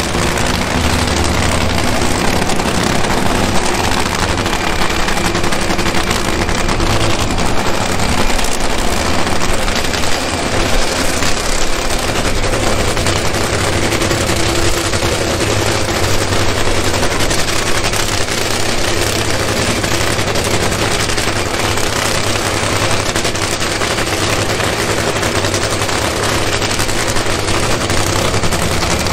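Nitromethane-fuelled drag racing engine running, a loud, dense, unbroken crackle.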